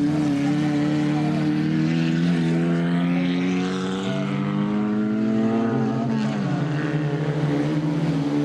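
Several race car engines running together at high revs, their pitch held nearly steady; one engine's note drops about six seconds in, as if lifting off for a corner.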